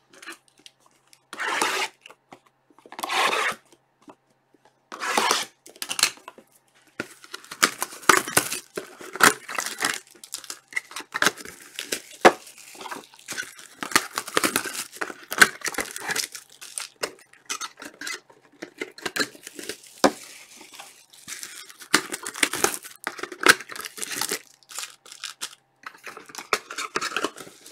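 Trading card boxes and packs being torn open by hand: three short tearing sounds in the first five seconds, then a long stretch of crinkling, rustling wrappers and cardboard with many small clicks.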